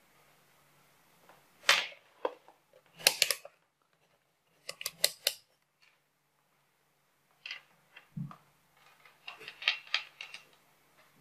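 Clicks and taps from handling a SEW DT830D digital multimeter and its test leads, including a quick run of four or five clicks from the rotary selector dial being turned through its detents. There is also a single low knock.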